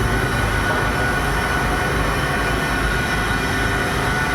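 Heavy machinery running steadily: a constant mechanical rumble with a steady high whine over it.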